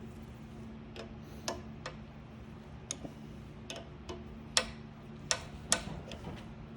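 Irregular sharp metal clicks and taps from tools and a battery cable while a compression battery terminal's nut is being tightened onto the cable, the loudest three close together in the second half. A steady low hum runs underneath.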